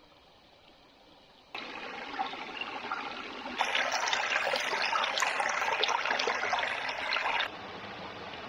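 Forest brook flowing and splashing, its sound jumping abruptly in level: near silence at first, steady water noise from about a second and a half in, louder from about three and a half seconds, then softer again near the end.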